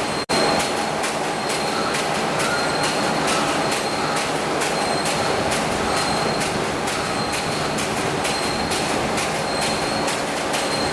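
Steel coil slitting machine running: a dense, steady metallic noise with a faint high whine and a fast, regular ticking of about four ticks a second.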